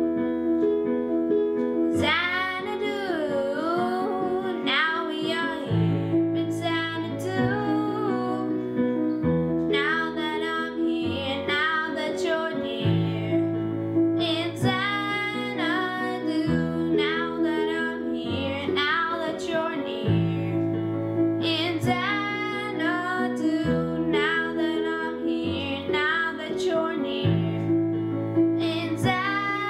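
A boy singing while accompanying himself on an electronic keyboard; the low notes of the keyboard chords change about every two seconds under the sung melody.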